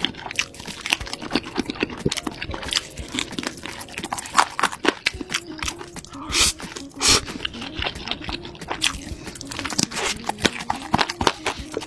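Close-up eating sounds: crunchy bites and wet chewing of sauce-glazed fried chicken, with a run of quick crackles throughout and two louder slurps of noodles about six and seven seconds in.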